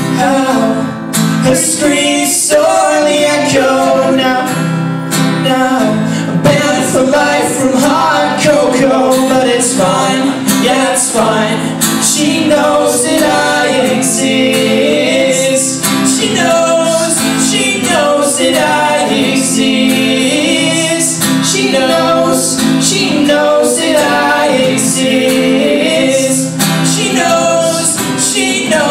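Live song performance: acoustic guitars played with singing over them, steady throughout.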